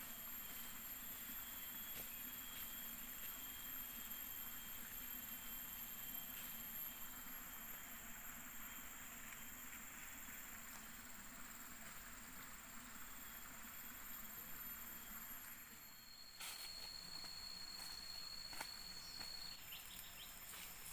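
Faint forest ambience of insects droning steadily, with several high, steady tones. Near the end another high steady tone joins for a few seconds, with a few faint ticks or rustles.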